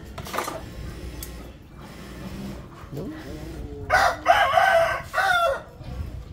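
Rooster crowing once, a loud crow in several linked parts about four seconds in, the last part falling in pitch.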